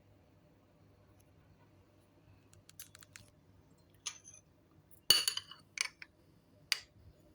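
Kitchenware clinking: a few light clicks, then a sharp ringing clink about five seconds in and two more soon after, like utensils or dishes knocking together.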